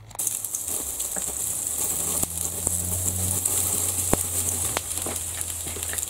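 Water sizzling and crackling as it boils off a red-hot boron steel padlock hasp, with a few sharp pops, the loudest about four seconds in. Under it runs the steady low hum of the high-current transformer driving the current through the lock.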